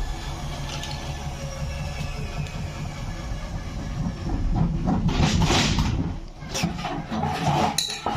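Zanussi washing machine without shock absorbers running: a steady rumble with a whine that slowly falls in pitch, then loud rattling, clattering and several sharp knocks through the second half.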